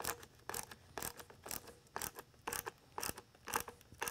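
Tensioner band being retightened around the red plastic dome of a Whelen RB6 rotating beacon. It makes a run of short rasping scrapes, about two a second.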